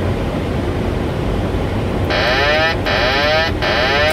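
Boeing 737 cockpit alert sounding about two seconds in: a loud electronic warble in three quick repeats, each with rising sweeps in pitch, typical of the autopilot-disconnect warning on final approach. Under it runs a steady rush of airflow and engine noise in the cockpit.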